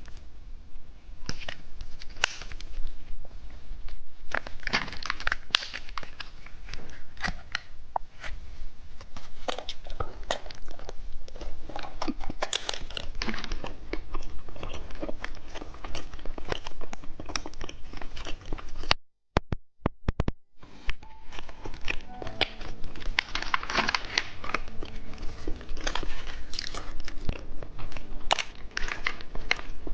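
Close-miked eating sounds of someone biting and chewing a cheese stick snack: a dense run of small wet clicks and crackles from the mouth. The sound drops out briefly about two-thirds of the way through.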